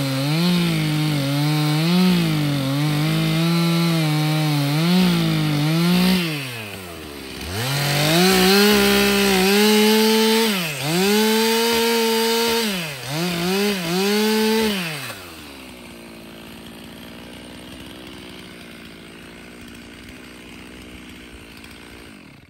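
Stihl MS 362 C 59 cc two-stroke chainsaw, fitted with a worn, stretched chain, cutting old boards under load for about six seconds and then dropping back. It is revved up and down several times, then idles much more quietly for the last seven seconds or so and stops right at the end.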